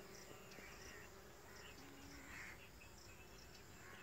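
Faint, steady buzzing of a dwarf honeybee (little bee) colony clustered over its single open comb, with faint high chirps now and then.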